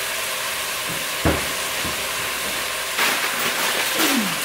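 Green beans sizzling in oil in a skillet, a steady hiss. There is a low thump about a second in, and the sizzle gets louder and more crackly near the end.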